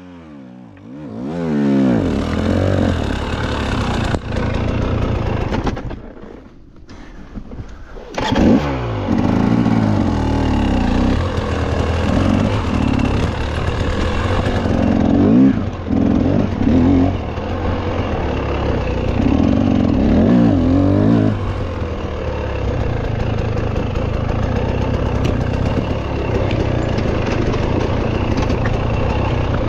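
Off-road dirt bike engine revving up and down as it climbs over rocks, the pitch rising and falling with the throttle. About six seconds in it drops low for a couple of seconds, then comes back on hard.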